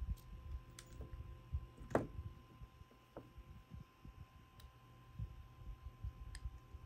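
Small pliers and beads clicking against wire as the beaded legs are bent and adjusted, a few separate clicks with the loudest about two seconds in, over soft low bumps of handling.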